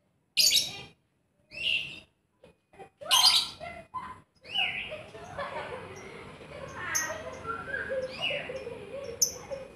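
Fischer's lovebird calling: three short, sharp chirps in the first three seconds, then from about four and a half seconds a long run of rapid chattering song with high squeaks.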